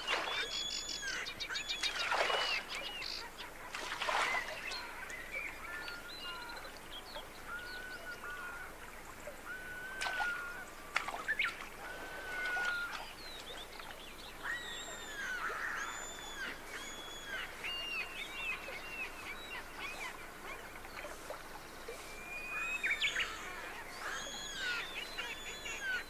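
Birds chirping and calling, many short arched whistled calls overlapping throughout, with a few brief louder noises now and then.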